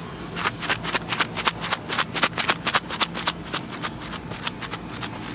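Small hard objects rattling inside a kiss-lock coin purse as it is shaken by hand, a quick, uneven run of clicks starting about half a second in.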